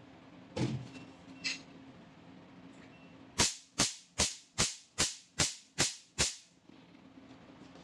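Pico laser handpiece firing eight shots onto black test paper, about two and a half a second, each a sharp snap as a pulse blasts a hole at a 6 mm spot size.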